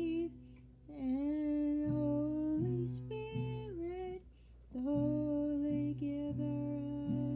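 A woman humming a wordless melody in long held, sliding notes, over low plucked guitar notes restruck about once a second; there are short breaths or pauses about a second in and past the middle.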